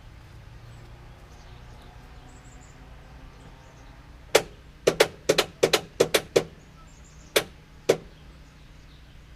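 About a dozen sharp knocks in an irregular, quick run, starting about four seconds in and ending with two spaced knocks near eight seconds: striking at a stuck oil filter to work it loose.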